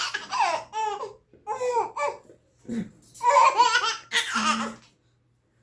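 A young child laughing in several short bouts, stopping about a second before the end.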